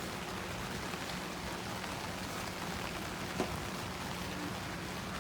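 Steady rain falling, an even hiss with one small tap about three and a half seconds in.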